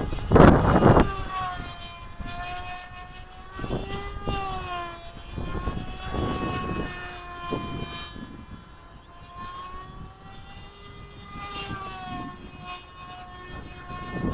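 Small RC plane's Blue Wonder 3000kv brushless electric motor and 4.5 x 4.5 propeller whining in flight, its pitch rising and falling as it changes speed. Gusts of wind rumble on the microphone, loudest in the first second.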